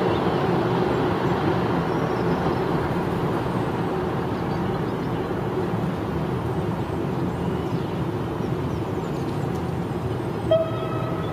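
Electric commuter train rolling past slowly on the tracks: a steady rumble of wheels on rail that gradually fades. Near the end a brief high tone starts sharply and then dies away.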